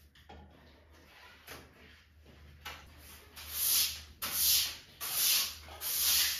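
A run of about six short hissing bursts, coming closer together and louder, the last four loud and about half a second each.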